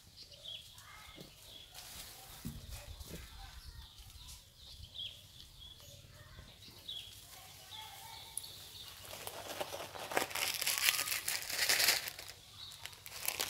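Leaves and twigs rustling and crackling, loudest for about three seconds near the end, with faint short high chirps in the background before it.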